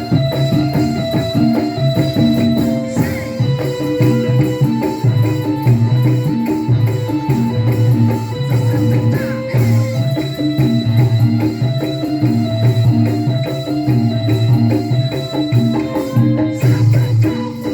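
Instrumental band music: a keyboard melody of held notes over a steady drum and tambourine beat.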